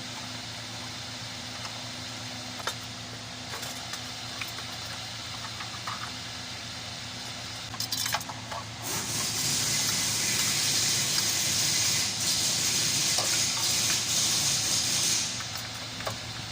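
Steady hum with a few small clicks, then about nine seconds in a loud, even hiss of a pressurised spray for about six seconds, cleaning out the thermostat seat on the engine.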